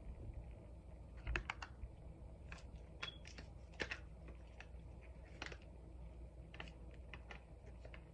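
Light, irregular clicks and taps from fingers and nails handling a plastic cream cheese tub, with a few quick clicks in a row about a second in.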